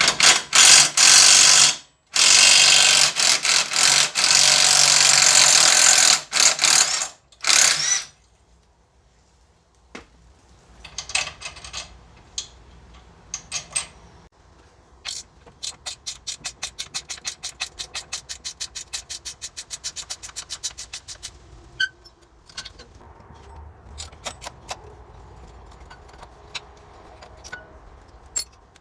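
A power tool runs in several loud bursts. Then scattered knocks, and a ratchet wrench clicking steadily at about seven clicks a second for several seconds, as parts are worked loose.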